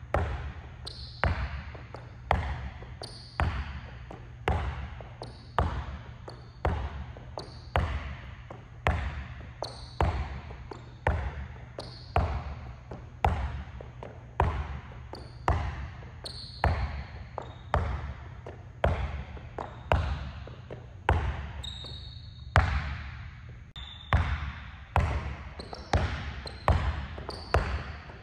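Basketball dribbled hard and steadily, about two bounces a second, each bounce echoing in a large gym. There are occasional short high squeaks.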